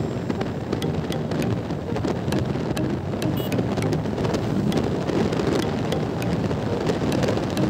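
Wind rushing and buffeting over the microphone of a Bajaj Pulsar NS160 motorcycle riding at road speed, a steady rough roar with small crackles, the bike's running and road noise mixed in underneath.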